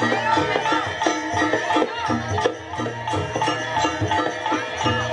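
Loud traditional Javanese gamelan music for a jaranan-style masked dance, played through a sound system: stepped metal-chime melody notes over a steady repeating drum beat, with a gliding higher melody line above.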